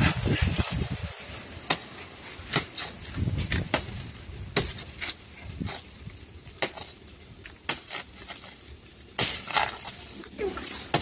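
Scattered sharp crackles and rustles, as of dry leaves and twigs underfoot, at irregular intervals, with a louder rustle about nine seconds in. Wind buffets the microphone in the first second.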